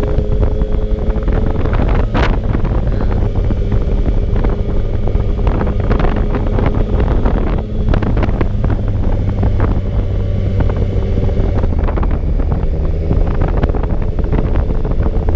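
Motorcycle engine running at a steady cruise under heavy wind buffeting on the microphone while riding, with frequent crackling pops from the wind.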